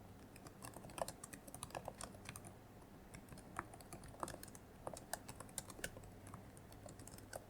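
Soft typing on a computer keyboard: quick, uneven keystrokes in short runs with brief pauses.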